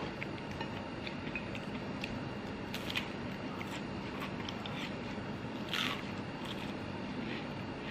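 Close mouth sounds of eating kue ape: chewing with scattered small clicks and a brief crisp bite about six seconds in, over a steady background hum.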